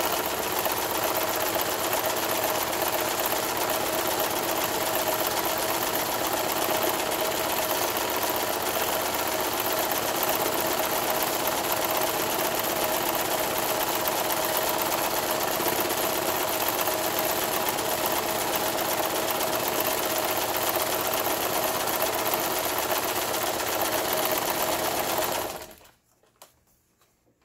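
Late-1980s Brother ZLB911 household zigzag sewing machine running steadily at speed, sewing zigzag embroidery stitches into cloth. The machine stops abruptly about two seconds before the end.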